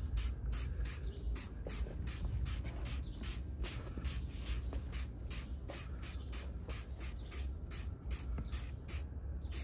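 Trigger spray bottle pumped over and over in quick short squirts, about three a second, misting acid wheel cleaner onto the back of an alloy wheel. A low steady rumble runs underneath, and the spraying stops shortly before the end.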